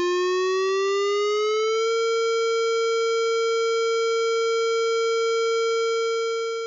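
Outdoor civil-defense warning siren sounding the steady alert tone that warns of an impending tornado or chemical release: the pitch rises as the siren winds up over the first two seconds, then holds one steady note, fading out near the end.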